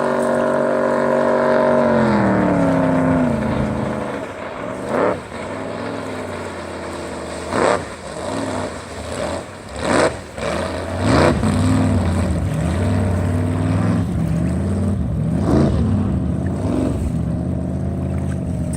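Chevy big-block V8 in a 14-foot Spirit boat running at high revs, then throttling back with a falling pitch about two seconds in. It then runs lower, rising and falling, with several brief loud whooshes over it.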